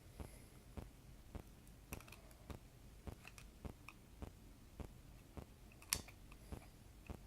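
Faint small clicks and taps of hands fitting a ribbon cable into a circuit board's connector, with one sharper click about six seconds in. A quiet, even tick runs underneath, nearly twice a second.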